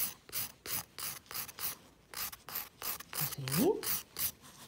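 Nail file rasping back and forth over a gel nail in quick, even strokes, about three a second, the fine 180-grit side of a 100/180 file taking down the gel's surface and curve.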